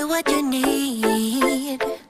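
Background music: a melody of gliding notes over a beat.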